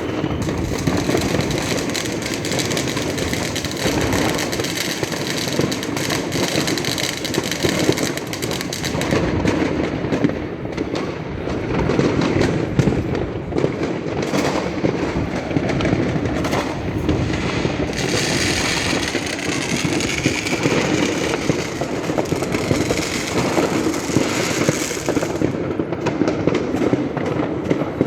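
Fireworks going off continuously: a dense crackle of pops and bangs. A high wavering whistle-like tone rises above it from about two-thirds of the way in until near the end.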